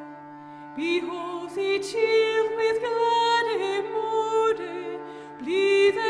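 Background music: a steady low drone with a slow melody of long held notes that comes in about a second in.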